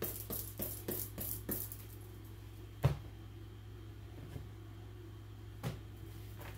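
Tarot cards being handled on a tabletop: a quick run of light card clicks and flicks, then two sharp knocks on the table about three seconds apart, over a steady low hum.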